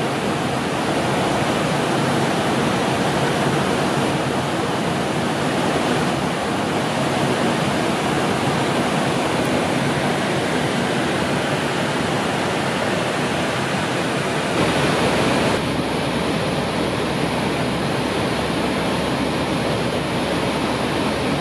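Steady rushing airflow noise on an airliner's flight deck at cruise. Its tone shifts slightly about fifteen seconds in.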